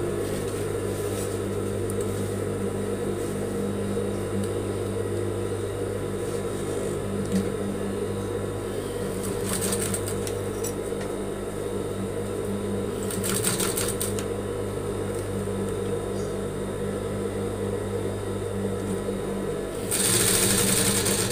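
Industrial lockstitch sewing machine running steadily as it stitches through cloth, a little louder near the end.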